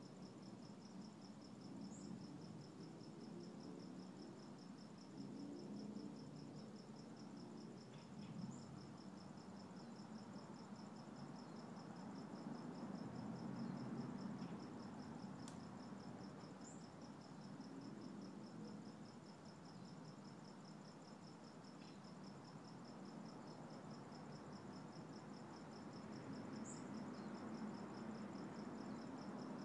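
Quiet outdoor ambience: a steady, high, pulsing insect trill over a low rumble, with a short high chirp every several seconds.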